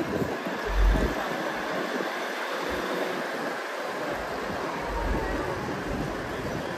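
DR2303 blue diesel railcar running on the track, with wind buffeting the microphone about a second in and again around five seconds in.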